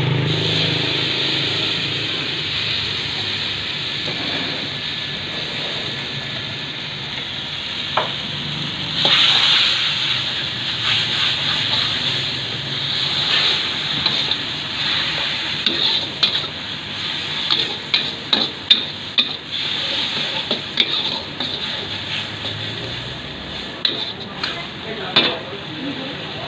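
Mee goreng noodles frying in a wok: a steady sizzle, with the metal wok spatula scraping and clanking against the pan as the noodles are tossed, the clanks coming quick and many in the second half.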